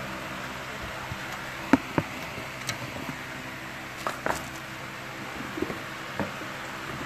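Scattered sharp knocks and taps of shoes being handled and set down close to the phone, the loudest two about two seconds in, over a steady faint room hum.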